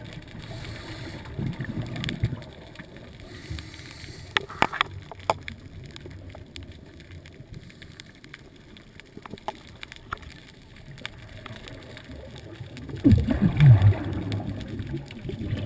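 Scuba diver's exhaled breath bubbling out of a regulator, picked up underwater as a low gurgling rumble in bursts, with a loud burst near the end. A few sharp clicks about four to five seconds in.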